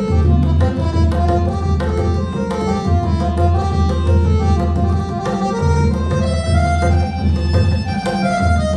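Tabla playing a steady rhythm, with sharp treble strokes and deep ringing bass strokes, under a harmonium playing a melody in held, stepping notes.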